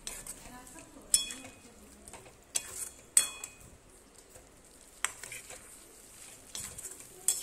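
Steel ladle stirring jackfruit pieces through thick masala gravy in a metal kadhai, over a low sizzle, with about five sharp clinks of the ladle striking the pan.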